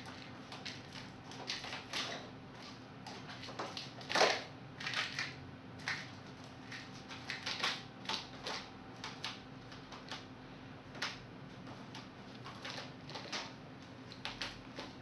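A kitten scrambling about in a crinkly plastic bag, making irregular rustles and crackles, loudest about four seconds in.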